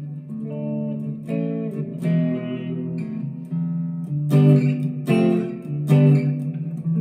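Harley Benton SC-450 Plus electric guitar played through an amp on the clean channel: picked notes and strummed chords ringing on, with the loudest strums in the second half.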